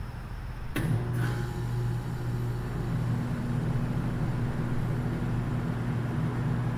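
A sharp crack about a second in, a fainter second crack just after it, then a steady low hum that sets in with the first crack and keeps going.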